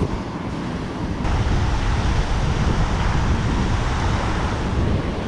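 Wind buffeting the microphone over a steady rush of water, a little louder from about a second in.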